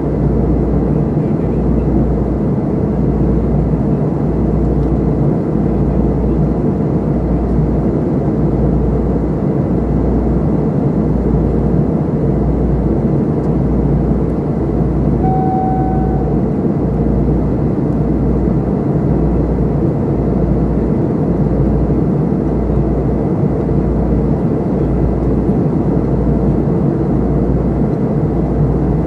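Steady cabin noise of an airliner in flight: the engines and airflow make a constant rush with a low throb that pulses about once a second. A short beep sounds once about halfway through.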